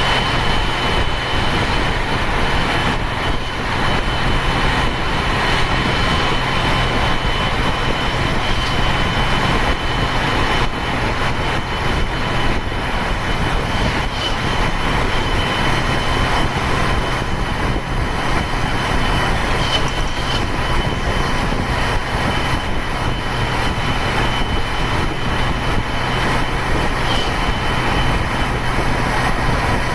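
Ashok Leyland turbo-intercooled diesel bus engine running steadily under load, pulling uphill, with a continuous high turbo whistle over the low engine drone.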